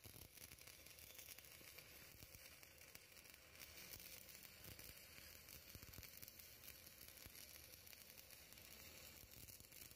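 Stick-welding arc crackling and sizzling steadily and faintly as the electrode burns, the arc held without a break.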